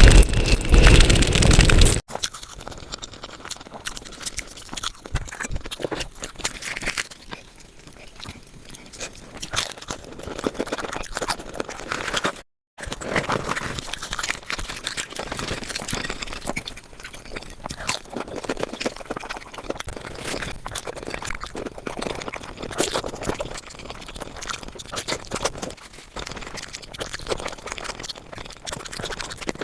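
Close-miked eating sounds sped up five times: a person chewing and crunching food, heard as a dense run of rapid clicks and crackles. A louder noisy sound fills the first two seconds and stops abruptly, and the sound drops out for a moment about twelve seconds in.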